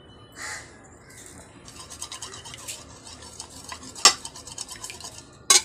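Spoon beating two raw eggs in a bowl: a fast run of small clicks and scrapes against the bowl, picking up about two seconds in, with two sharp knocks of the spoon on the bowl in the second half.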